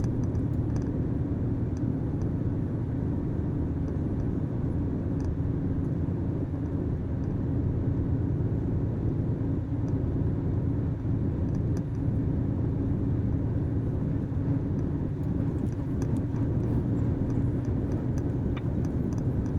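Truck engine and road noise heard from inside the cab while driving: a steady low drone.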